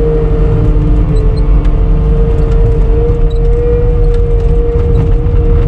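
CAT 246D skid steer's diesel engine running steadily, with a constant high whine over a low rumble, heard from inside the cab.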